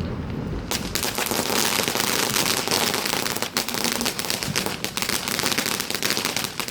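A firework crackling: a dense, rapid crackle of many small bangs. It starts suddenly under a second in, dips briefly about halfway, then carries on.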